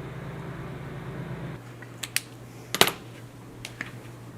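A few sharp clicks and taps of small hard objects handled on a tabletop, the loudest near the middle, over a low steady hum that cuts off about a second and a half in.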